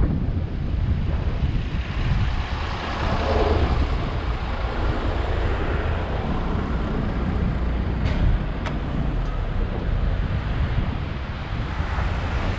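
Road traffic heard from a moving bicycle among cars and a city bus: a steady rumble of engines and tyres, with two sharp clicks about eight seconds in.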